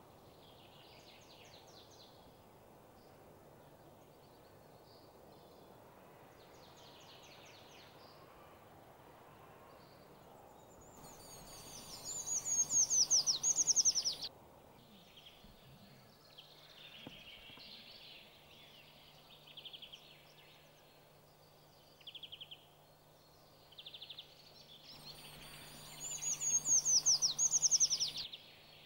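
Eurasian treecreeper singing: two loud song phrases, each a high, thin run of descending notes lasting about three seconds, one near the middle and one near the end. Fainter chirps and short trills come between them over a steady low background hum.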